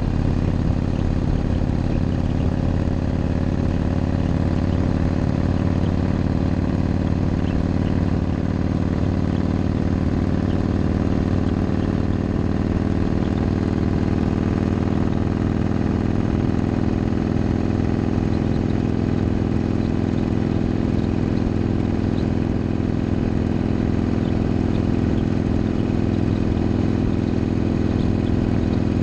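Motorcycle engine running at a steady, even pitch while riding along.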